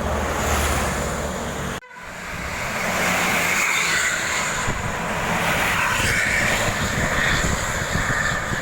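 Bus engine and road noise, a steady noisy rumble with no horn melody sounding. It cuts out briefly a little under two seconds in, then builds back up.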